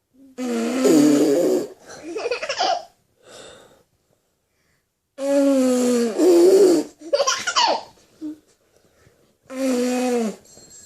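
Small children blowing mouth fart sounds (raspberries) in several loud bursts of a second or so, voiced and spluttering, with giggles and a rising squeal between them.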